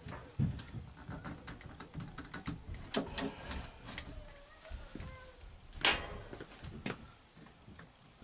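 Scattered clicks and knocks from an RO membrane housing and its cap being tightened with a plastic housing wrench and handled, the sharpest click about six seconds in.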